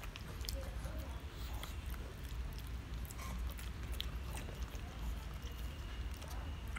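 A pug crunching and chewing biscuit, with scattered sharp crunches and clicks, most of them in the first four seconds or so. A steady low hum runs underneath.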